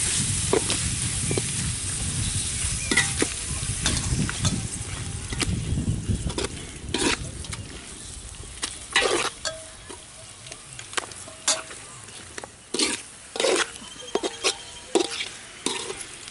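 Metal ladle stirring and scraping raw mutton pieces into a sizzling onion-tomato masala in a large metal pot. The frying is heavy through the first half, then dies down as the meat goes in, leaving the ladle's sharp clicks and scrapes against the pot standing out.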